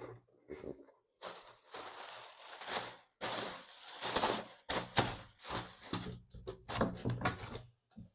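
Packaging being handled: a string of rustling, crackling noises with sharp knocks and clicks.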